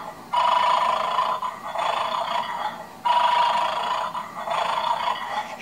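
Bad Dog toy's electronic snoring sound played through its small speaker: two long snores, each about two and a half seconds.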